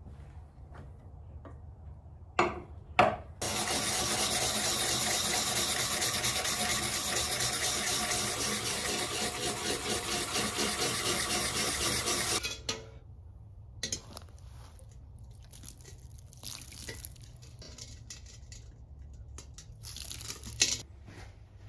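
A steel plane iron scrubbed back and forth on a flat abrasive sharpening surface: a steady gritty scratching of quick strokes lasting about nine seconds, after two sharp knocks as it is set down. Near the end, a brief splash of water poured from a pot.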